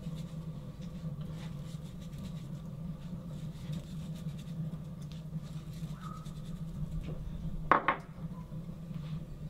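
Light kitchen handling as salt and dried herbs go into a marinade bowl: scattered small clicks and scratches, with one sharp knock about three-quarters of the way in as something is set down. A steady low hum runs underneath.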